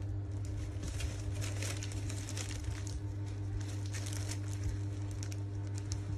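Crinkling and rustling of the plastic and paper wrapping on a new handbag's handles and pouch as it is handled and pulled away, in many short irregular crackles over a steady low hum.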